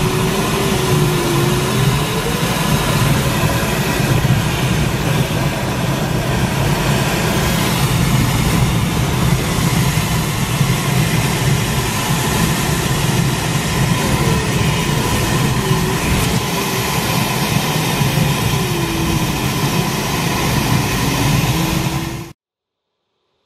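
Airflow rushing over the canopy and fuselage of an engineless Duo Discus glider in flight, heard inside the cockpit as a loud, steady rush. A faint tone wavers up and down at times. The sound cuts off abruptly near the end.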